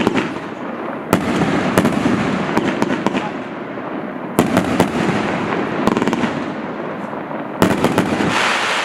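A 105-shot firework cake of 25 and 30 mm tubes firing in rapid succession: a string of sharp launch thumps and aerial bursts at uneven intervals over a continuous crackle. The heaviest volleys come about a second in, midway and near the end.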